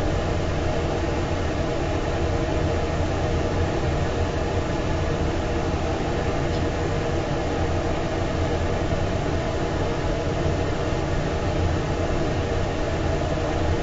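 Steady mechanical drone of food-trailer kitchen equipment: an even rushing hiss over a low hum, unchanging throughout.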